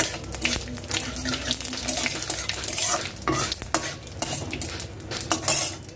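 Flat metal spatula scraping and clicking repeatedly against a metal kadai while bay leaves and cumin seeds sizzle in hot oil.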